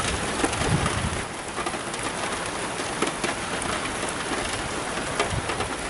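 Heavy rain falling steadily, a constant hiss of downpour, with a few small clicks and soft knocks over it.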